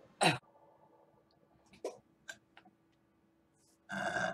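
A woman burping: one short, loud burp that falls in pitch, then a few faint clicks, then another burp starting near the end.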